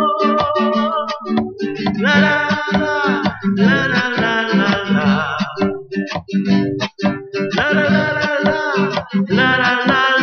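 Music: a song's instrumental passage led by strummed acoustic guitar.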